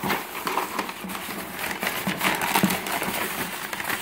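Tissue paper rustling and crinkling as hands rummage through it inside a cardboard shipping box, a continuous crackle of quick small crinkles.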